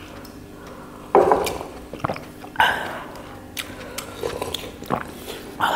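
Close-miked eating sounds: chewing and mouth noises as meat is eaten, with two louder sudden sounds about a second and two and a half seconds in and a few small clicks after.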